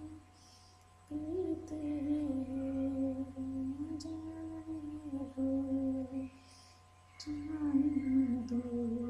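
A woman humming a slow, wandering tune in two long phrases, with a short pause between them, over a steady low hum.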